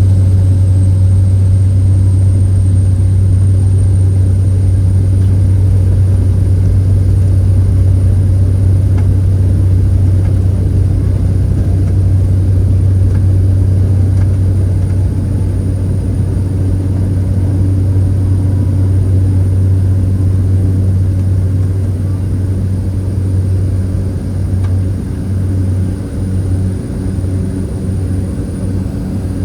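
Propeller aircraft engine at takeoff power, a loud steady drone with a faint high whine, easing a little and wavering in the last few seconds.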